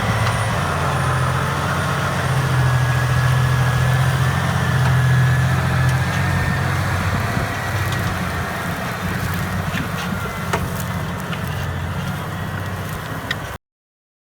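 Massey Ferguson 7618 tractor's six-cylinder diesel engine running steadily with a deep hum. The sound cuts off abruptly near the end.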